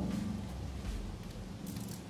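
Socket ratchet clicking a few times near the end as it is set onto and turns the float-bowl bolt of a Kawasaki FE290D carburetor, over a low steady hum.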